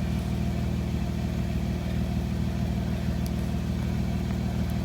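A motor running steadily: a low, even drone that holds the same pitch throughout.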